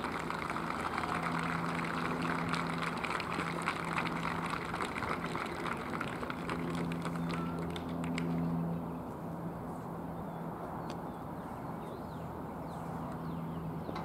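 Light applause and clapping from a small crowd, dying away about nine seconds in, over a steady low hum.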